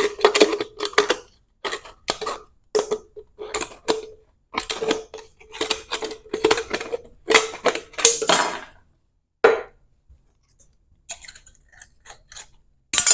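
Scissors cutting thin aluminum from a drink-bottle can, a quick run of crinkly snips and metallic crackles that stops about nine seconds in, leaving a few faint clicks of handling.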